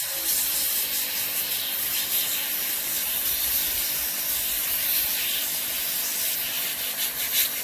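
Power washer spraying a steady jet of water onto a rubber brake caliper dust cap, rinsing debris out of it; the hiss starts suddenly, with a faint steady hum beneath.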